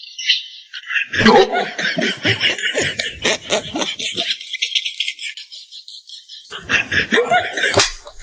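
A person laughing in quick, choppy bursts, in two bouts with a pause between them.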